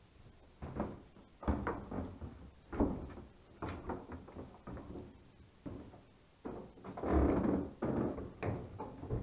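Footsteps climbing a narrow wooden staircase: irregular thuds and knocks on the treads, with a longer scraping rustle about seven seconds in.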